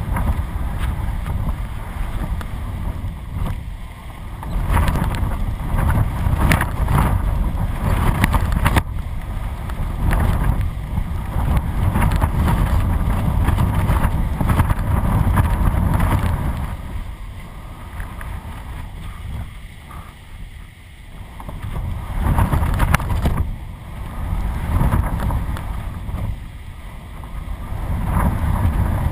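Strong, gusty wind buffeting a camera mounted on a kite, a heavy rumble that swells and eases with the gusts and drops back for a few seconds past the middle.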